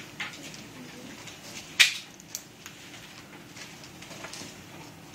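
Room murmur with a few scattered small knocks and clicks, the loudest a sharp click a little under two seconds in.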